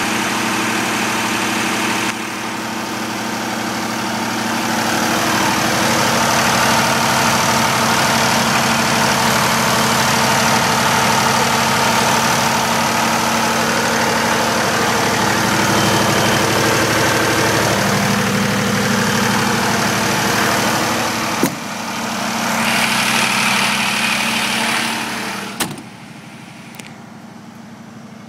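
FG Wilson XD27 diesel generator set running steadily at constant speed with its canopy doors open. About three seconds before the end a sharp knock comes and the engine sound suddenly becomes much fainter.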